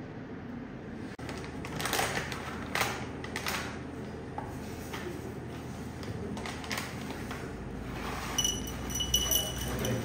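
Knocks and clinks of cups and tools handled on a café counter, then coffee beans poured from a bag into a dosing cup near the end, with a high ringing note and clinks.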